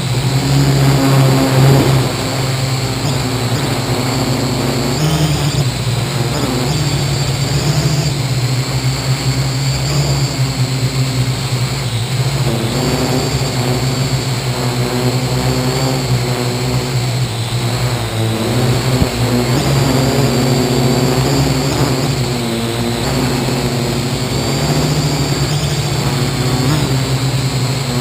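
Parrot AR.Drone 2.0 quadcopter in flight: its four electric motors and propellers whir steadily, the pitch shifting a little from moment to moment.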